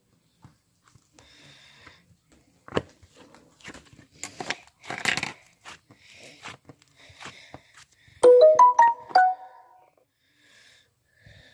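Faint sniffing and breathing noises with small clicks, then a quick run of about eight bright pitched notes, like a short melody, a little after eight seconds. The notes are the loudest sound.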